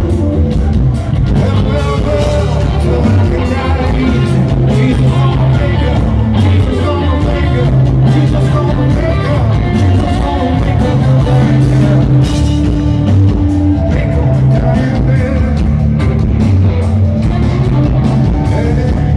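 Live rock band playing loud through a concert PA, with electric guitar, drums and a male lead vocal, recorded from the crowd.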